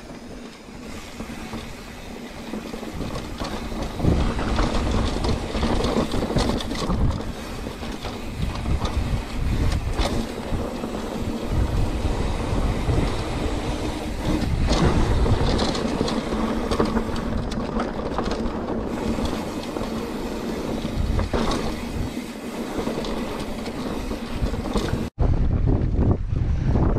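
Mountain bike rolling fast over dirt and rock: continuous tyre rumble and clattering of the bike over bumps, with wind buffeting the microphone. The sound drops out for an instant near the end.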